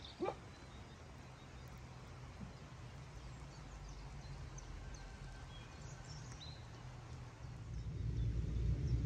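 Faint, scattered bird chirps over a steady low rumble that swells louder near the end, with a short rising squeak right at the start.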